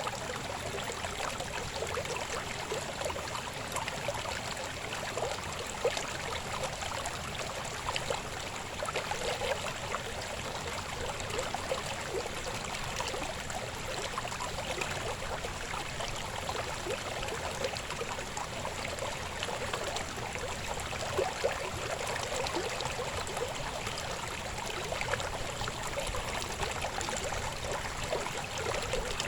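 River water babbling and splashing steadily over stones, a continuous rushing flow full of small irregular splashes and gurgles.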